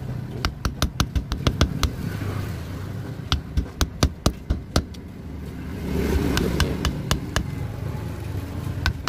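Sharp metal-on-metal taps of a steel rod worked into the slots of an electric motor's stator, in several quick runs of taps, over a low steady rumble.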